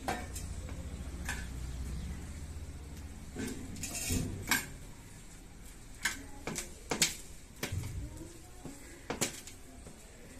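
Scattered light clinks and taps on a brass plate as maize-flour roti dough is pressed and patted out by hand, with a low rumble in the first few seconds.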